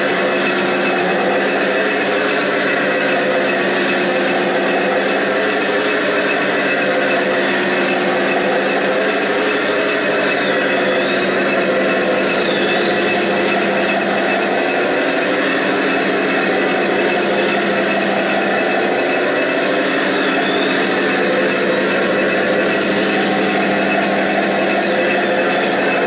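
Remote-control M26 Pershing toy tank running as it drives about, a steady engine-like drone with a higher motor whine that dips briefly a few times.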